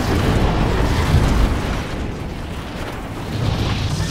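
Deep rumbling boom, like an explosion or crash sound effect, dying away over about three seconds and swelling again near the end.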